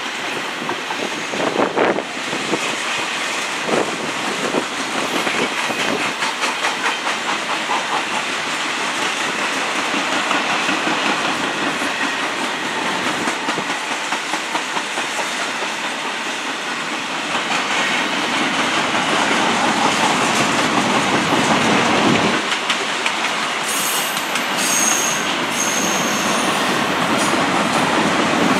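Empty TTX double-stack well cars of a CN intermodal train rolling past: a steady clatter of steel wheels on the rails with rhythmic clicks, and a few brief high-pitched wheel squeals near the end.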